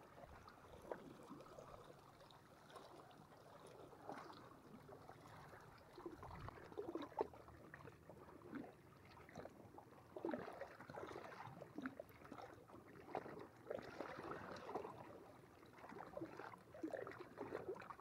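Faint, irregular lapping and splashing of small waves at the water's edge, with a few slightly louder splashes in the second half.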